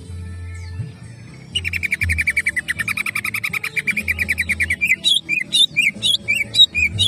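Male greater green leafbird (cucak ijo) singing hard. About a second and a half in it bursts into a loud, fast trill of evenly repeated notes, then from about five seconds into a run of separate whistled notes that sweep up and down, three or four a second.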